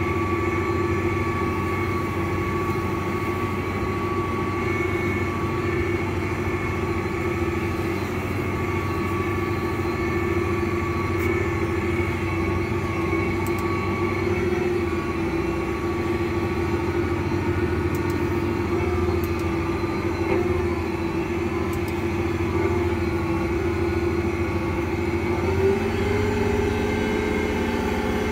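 Versatile 365 tractor's Cummins diesel engine running steadily, heard from inside the cab as the tractor drives, with a thin steady whine above the engine note. Near the end the engine note steps up in pitch.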